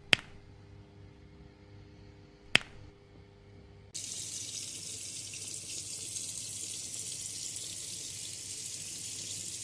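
Two sharp clicks a couple of seconds apart, then tap water switches on about four seconds in and runs steadily into a hair-washing basin.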